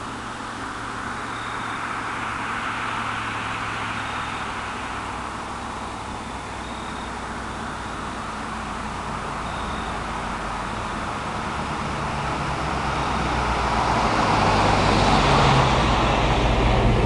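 Vehicle on a highway: steady road and engine noise that swells and gets louder over the last few seconds, with a faint short high tone repeating about every second and a half.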